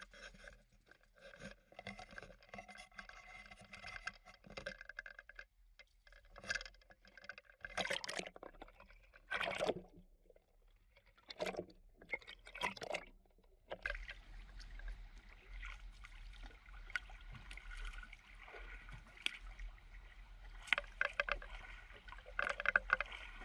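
Sea water gurgling and sloshing around a camera dipped at and under the surface beside a boat. There are several louder splashes about eight to thirteen seconds in, then a steadier rush of water.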